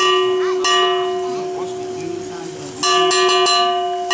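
A small metal bell struck in a slow, repeating pattern: once at the start, again about two-thirds of a second later, and a third time near three seconds in. Each stroke leaves a clear ringing tone that carries on until the next.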